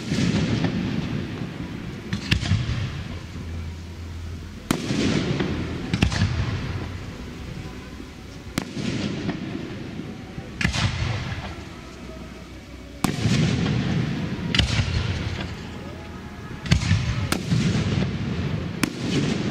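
Aerial firework shells bursting overhead: about eleven sharp bangs, one to two and a half seconds apart, each trailing off over a second or so.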